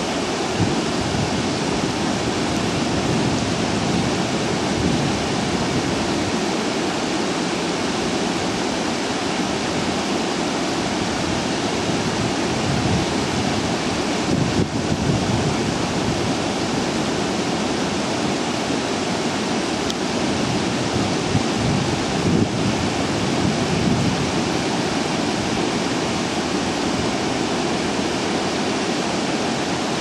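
Steady rushing of water flowing through open treatment basins and over their weirs, with wind buffeting the microphone in an uneven low rumble.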